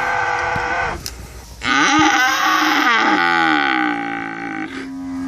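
Cows mooing: one moo trails off about a second in, then a long, loud moo drops in pitch partway through and holds, and another low moo begins near the end.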